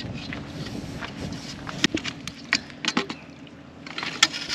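Footsteps and handling on dry mangrove roots and pine straw: a dozen or so irregular light clicks and cracks, the sharpest near the end, over a faint steady background rumble.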